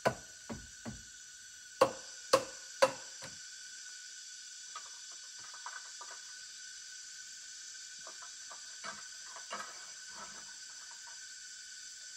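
Sharp knocks from work on wooden shelter poles: a few light ones at the start, three loud ones about half a second apart around two seconds in, then lighter knocks and scuffs later. A steady, high-pitched forest insect drone runs underneath.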